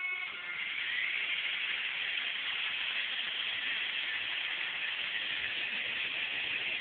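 Small toy remote-control helicopter running: its electric motor and rotors make a steady high whirring hiss, with the pitch rising briefly about a second in.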